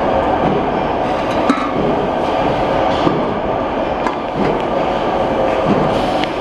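Pot edge-trimming and curling machine running: a steady mechanical rumble with sharp metallic clicks and knocks at uneven intervals.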